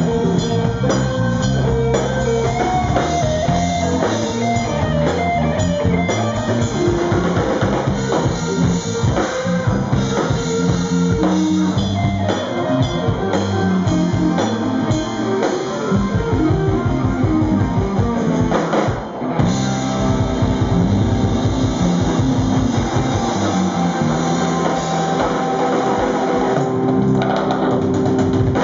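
Live rock band playing: electric guitar and bass over a drum kit, with a short drop in the music about two-thirds of the way in.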